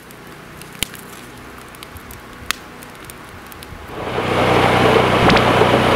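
Quiet crackle of a freshly lit wood fire in a mesh fire pit, with a couple of sharp snaps. About four seconds in, the loud, steady engine and blower noise of a rotary snowplow truck fades in.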